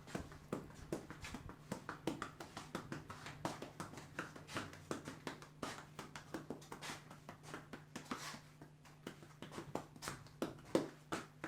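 Hands working a head during an Indian head massage: quick, irregular taps and pats, several a second, with a few longer rubbing strokes through the hair, over a steady low hum.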